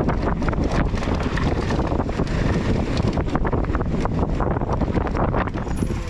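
Wind buffeting the microphone of a mountain bike descending a downhill trail at speed, mixed with a constant rattle and clatter of the bike over rough ground.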